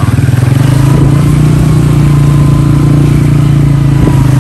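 Motorcycle engine running steadily while riding, a loud, steady low drone.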